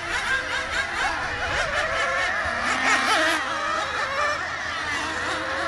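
Several radio-controlled racing cars running around the track together, their high engine whines overlapping and rising and falling in pitch as they accelerate and slow through the corners.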